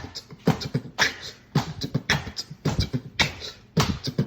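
A steady rhythmic percussive beat: strong hits about twice a second with lighter hits between and a low thump under them, in the manner of beatboxing or a drum-machine beat.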